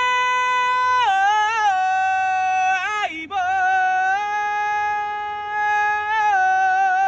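A man singing long, wordless high notes at full voice: a held note that slides down about a second in, a brief break near three seconds, then a long held note that steps down again near the end and takes on vibrato.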